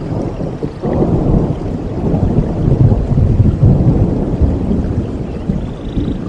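A long, low rumble of thunder over steady rain. It swells about a second in and eases off near the end.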